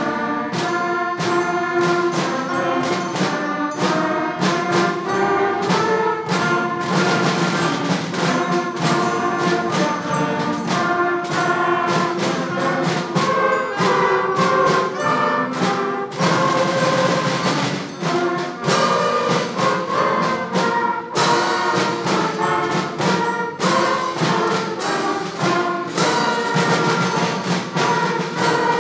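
School concert band playing a patriotic piece: clarinets, saxophones, trumpets and trombones together, with frequent percussion and cymbal strokes.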